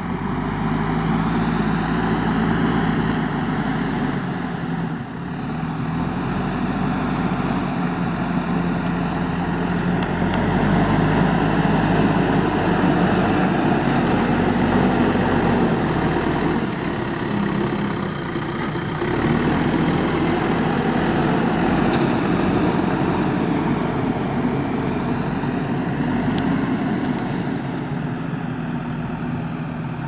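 Diesel engine of a JCB 3DX backhoe loader running as it works the loader bucket, its note and loudness shifting up and down with the load, with brief dips about five seconds in and again a little past the middle.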